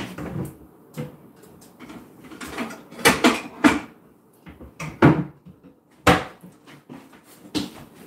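Kitchen handling sounds: a cupboard door and dishes knocked about, a string of separate knocks and short clatters with quiet gaps between.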